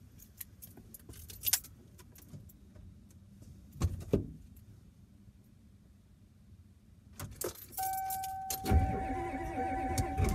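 Keys jangling in the ignition of a Ford 6.9 L IDI V8 diesel, with a knock about four seconds in. Near the end a steady warning tone comes on, and the starter begins cranking the cold engine with new glow plugs and the glow-plug controller bypassed.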